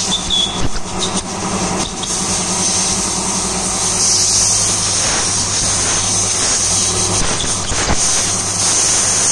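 Compressed air hissing hard out of an air blow gun pressed against a Honda City fuel pressure regulator valve, blowing it clean, over the steady hum of an electric air compressor running. The hiss grows stronger about four seconds in.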